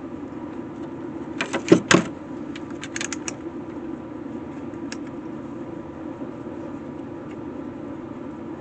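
Sharp clicks and knocks from handling and prying apart an electric fence charger on the bench: a quick cluster about one and a half seconds in, which is the loudest part, a few more around three seconds, and a single click near five seconds, over a steady low hum.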